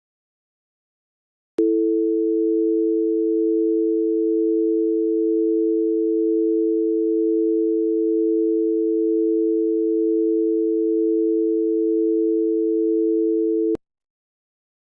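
A steady two-tone electronic alert tone, two pitches sounding together, of the kind used as an emergency alert attention signal. It starts with a click about one and a half seconds in, holds unchanged for about twelve seconds, and cuts off abruptly with a click near the end.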